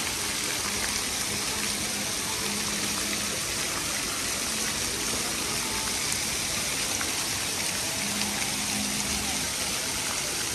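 Steady rush of splashing water from a city-centre fountain water feature.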